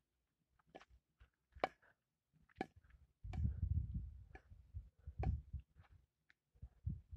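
A series of short, sharp clicks and light knocks roughly a second apart, with a low rumble in the middle.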